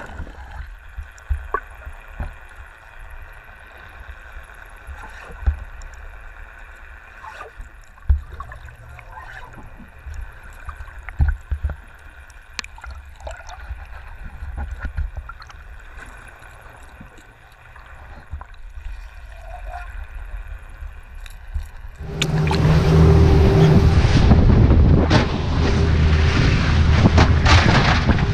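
Muffled underwater sound through a submerged action camera, with scattered small knocks and clicks. About 22 seconds in it gives way suddenly to loud rushing wind and water noise with a steady low hum, as the camera comes up out of the water.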